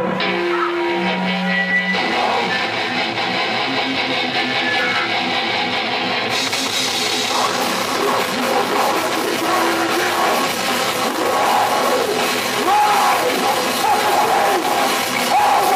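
Heavy metal band playing live, with distorted electric guitars and bass. It opens on a few held notes, then the full band plays and the sound grows brighter about six seconds in.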